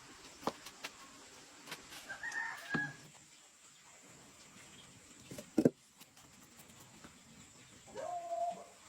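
Chicken calls: a short high call about two seconds in and a longer, lower call near the end, with a few sharp knocks between them, the loudest a double knock about halfway through.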